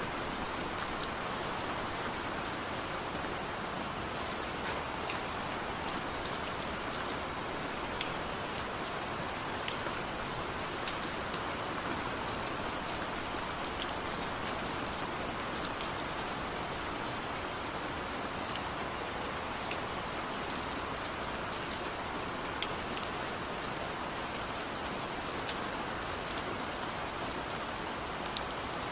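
Steady rain falling, with individual drops ticking sharply on hard surfaces through the even hiss.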